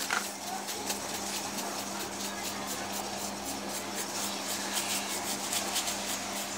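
Paintbrush scrubbing on a canvas: a run of quick, scratchy strokes, over a steady low hum.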